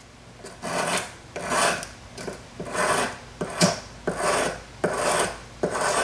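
Hand sanding of a sterling silver belt-buckle piece with a flat sanding stick, worked back and forth over a wooden bench pin. Even rasping strokes, about one and a half a second, starting about half a second in.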